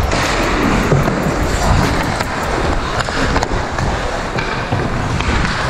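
Ice hockey skates scraping and carving on rink ice, heard close through wind rumble on a helmet-mounted camera, with a few sharp clacks.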